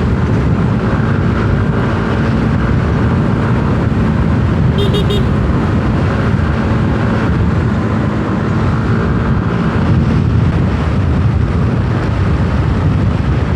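Yamaha Aerox 155 scooter's single-cylinder engine running steadily while riding at a constant speed, with road and wind noise. A short beep sounds about five seconds in.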